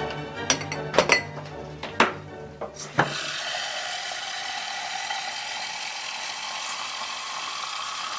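Several sharp glass clinks and knocks as a drinking glass is handled at the sink, then tap water from a kitchen faucet runs steadily into the glass, its pitch rising slowly as it fills. Background music plays under the first three seconds.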